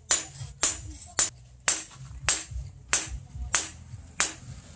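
Hand hammer striking a red-hot steel axe head on a steel stake anvil: about eight sharp, ringing blows at a steady pace of a little under two a second.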